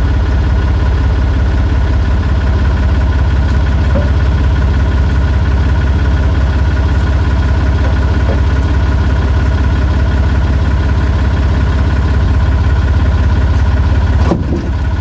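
Engine of the machine lowering the tractor cab, running steadily at idle with a low hum and a few steady whining tones; the sound briefly drops out near the end.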